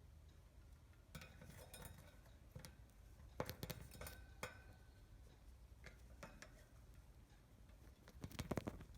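Budgerigar tapping with its beak on a hard surface: faint clusters of light clicks and taps, about a second in, again around the middle, and a quicker run near the end.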